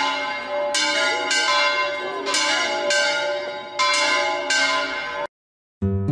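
Church bells ringing, several strikes at uneven intervals, each with a long ringing tail. The ringing cuts off suddenly about five seconds in, and strummed acoustic guitar music starts right at the end.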